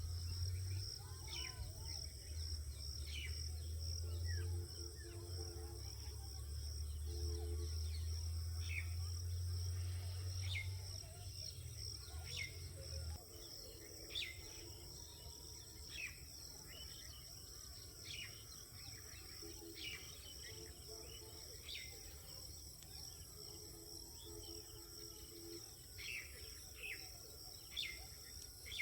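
Steady insect chorus: a high, pulsing trill, with short falling chirps scattered throughout. A strong low hum runs underneath and stops abruptly about thirteen seconds in.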